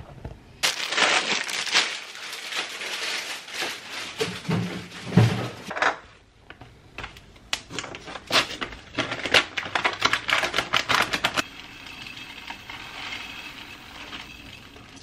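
Crinkling and rustling of food packaging as it is handled and torn open, with many sharp crackles. Near the end this gives way to a steady hiss of rolled oats being poured from their packet into a glass jar.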